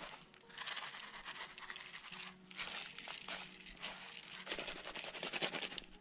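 Plastic seasoning packets and bags crinkling and rustling as they are handled, in uneven bursts with small clicks.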